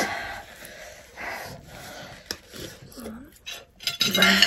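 People sniffling, blowing a nose into a tissue and breathing hard through open mouths from the burn of extremely spicy ramen, with a short vocal sound near the end.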